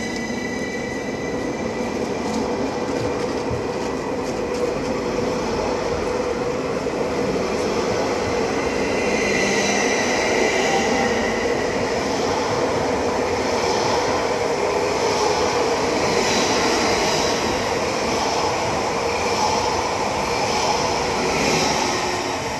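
Three coupled VR Sm5 (Stadler FLIRT) electric multiple units running past close by: a steady rumble and hiss of wheels on rail, growing slightly louder in the second half, with a faint pulsing high hiss as the cars go by.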